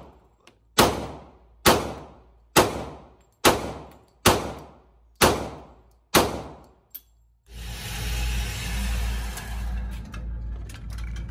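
Glock 27 .40-calibre subcompact pistol firing seven shots at a steady pace, about one a second, each ringing out in an indoor range. A faint click follows the last shot, then a steady rushing noise.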